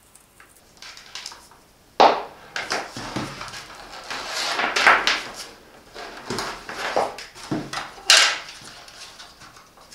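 Handling noise of a portable tyre-inflator compressor's plastic case being lifted, turned over and set down, with its cords and air hose rustling. There is a sharp knock about two seconds in and further knocks and rustles after it.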